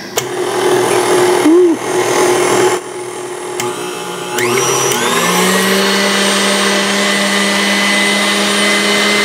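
KitchenAid Artisan tilt-head stand mixer running with its wire whip whipping egg whites in the steel bowl. It starts at a low speed, then about four and a half seconds in the motor speeds up with a rising whine and holds steady at the higher speed.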